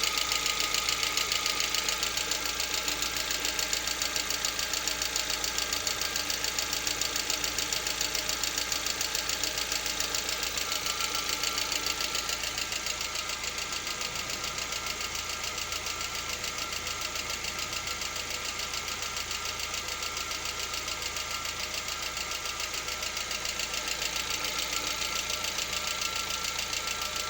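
Lada Vesta engine running steadily with a rapid, even knock. The knock appears only part-way through warm-up, at about 50 °C: it is absent from a cold start and goes away at operating temperature.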